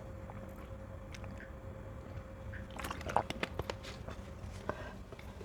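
Someone chewing and biting mango slices with the mouth close to the microphone. There are small wet mouth clicks, with a quick run of them about three seconds in.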